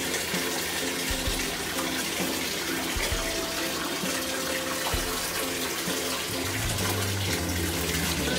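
Bathtub tap running, water pouring steadily into the tub as it fills.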